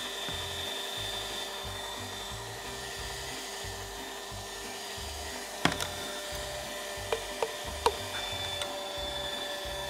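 Electric meat grinder running with a steady motor hum while mincing cooked poultry liver. A few sharp clicks come in the second half.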